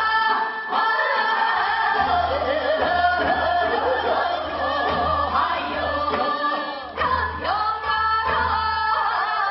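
A woman singing Seodo sori, the folk song of Korea's northwestern provinces, into a microphone, her held notes bending and wavering in pitch. Korean traditional strings, including a bowed haegeum, accompany her.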